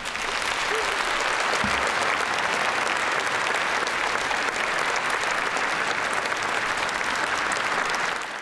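Large concert audience applauding: dense, steady clapping that breaks out at once at the end of the song and begins to fade right at the end.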